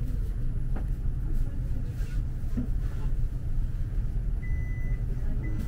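Low rumble of a tram rolling slowly into a stop, heard from inside the car. About four and a half seconds in, a thin high steady tone begins and recurs in short pieces.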